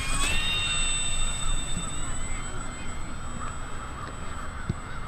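E-Flite UMX Turbo Timber Evolution's small electric motor and propeller whining at a steady high pitch, stepping up slightly just after the start and fading out about two seconds in. Wind rumbles on the microphone throughout.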